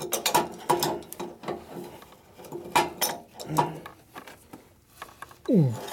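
Metal clinks and scrapes of a wrench working a lathe's leveling screw under the bed, a string of short sharp clicks. Near the end comes a loud falling groan of effort.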